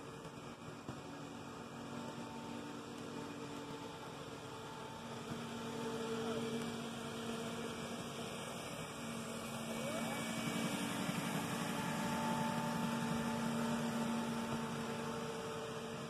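Model passenger train running on a model railroad track, a steady electric motor hum with the rattle of wheels on the rails. It grows louder as the train draws near, loudest about two-thirds of the way in.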